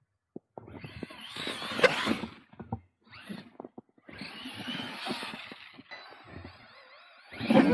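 Losi LMT RC monster truck's electric motor whining with wavering pitch as it drives, its tyres churning through snow. It comes in several short stretches separated by brief silences, with a louder burst near the end.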